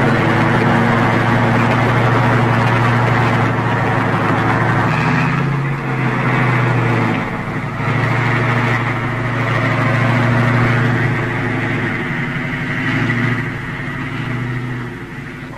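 Tank engine running with a steady, heavy drone; its pitch drops slightly about five seconds in, and it grows a little quieter near the end.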